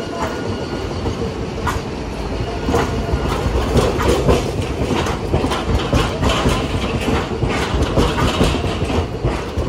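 Hiroden articulated streetcar running past, a low rumble with its steel wheels clacking and knocking over the rail joints and points. The clacks grow louder and more frequent from about two seconds in.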